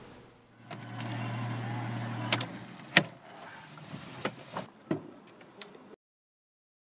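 A small car: a steady low hum for about a second and a half, then one loud sharp click and a few lighter clicks and key rattles near the ignition, before the sound cuts off abruptly.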